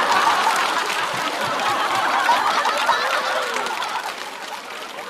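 Studio audience laughing and applauding after a punchline, the crowd noise slowly fading away.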